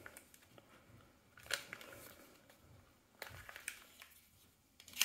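Soft handling clicks and scrapes of plastic and metal as a rail-mounted torch is slid off an airsoft pistol's accessory rail, in three short clusters: about a second and a half in, around three seconds in, and near the end.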